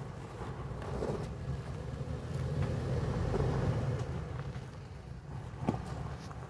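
Toyota 4Runner's V6 engine running at a slow crawl while its tyres crunch over gravel and stones, getting louder about halfway through as the SUV comes closer. A sharp crack of a stone under a tyre comes near the end.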